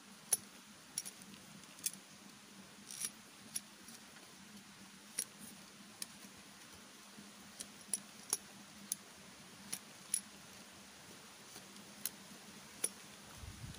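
Knife blade cutting into bamboo: about twenty sharp, irregular clicks and cracks as a pronged bamboo fishing spear is shaped by hand.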